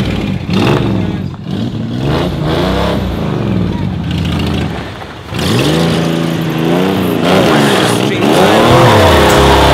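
1978 AMC Pacer's engine revving hard several times, its pitch climbing and falling, as the car pulls away on gravel; the revs rise and hold loudest near the end.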